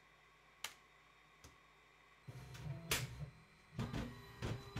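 Two light clicks, then a colour dot matrix printer starting up about two seconds in: its paper-feed mechanism runs and clunks with several sharp clicks as it draws in a sheet of paper.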